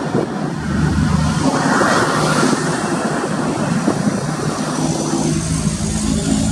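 Heavy diesel trucks passing on a highway: engine noise and tyre rush, swelling loudest about two seconds in as a truck goes by, with a steady low engine drone coming up near the end.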